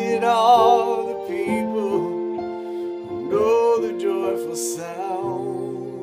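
A man singing two long held notes with a wide vibrato, one at the start and one about three seconds in, over sustained keyboard chords that change several times.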